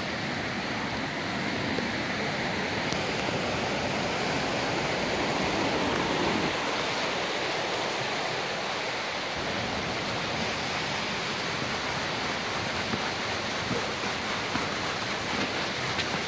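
Running water rushing steadily.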